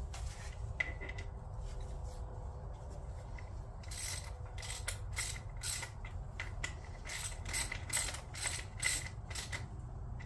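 Ratchet wrench being worked, a run of short clicking strokes about two a second that starts a few seconds in, over a low steady hum.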